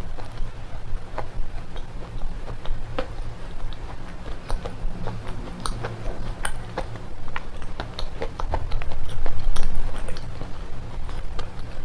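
Close-miked crunching and chewing of red slate pencils (baked clay sticks): a dense run of irregular sharp cracks and crunches over a low rumble, growing louder late on.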